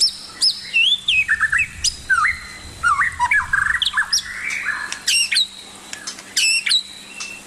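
Birds chirping and squawking: a steady run of short whistled chirps and glides, with louder, rapid squawking calls about five and six and a half seconds in.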